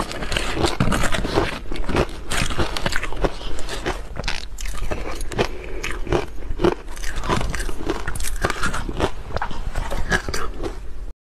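Close-miked crunching and chewing of crushed ice eaten off a spoon: a dense, continuous run of crisp crunches that stops abruptly just before the end.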